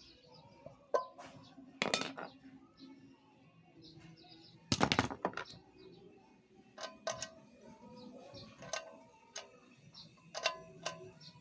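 Irregular metallic clinks and knocks of tools and engine parts being handled, about eight in all, some ringing briefly, with the heaviest knock about five seconds in.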